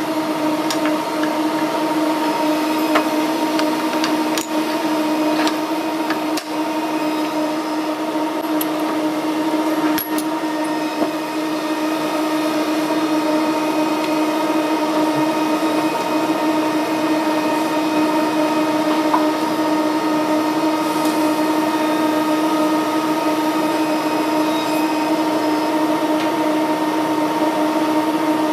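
Steady drone of running workshop machinery: a constant hum with a whirring, air-moving noise that does not change. A few light metallic taps and clicks come through it in the first part.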